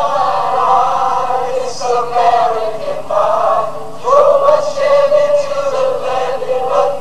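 Several voices singing a song together, pitched notes held and sliding from one to the next.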